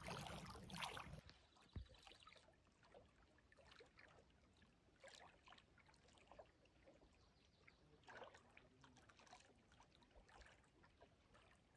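Near silence: faint lakeside ambience with soft, scattered little ticks and a hint of moving water. A louder hiss fades out in the first second.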